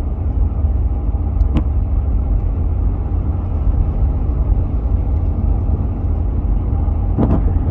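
Steady low rumble of a car's engine and tyres at highway speed, heard from inside the cabin. There is a brief click about a second and a half in and a short knock near the end.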